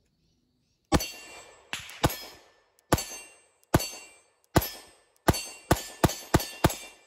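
A pistol is fired about eleven times, single shots spaced roughly half a second to a second apart, then a quicker string of five at about three a second near the end. Each shot is a sharp crack with a short ringing tail.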